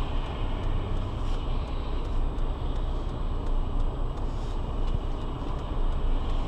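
Steady low rumble of a car standing with its engine running, heard from inside the cabin, with faint ticks at a regular pace.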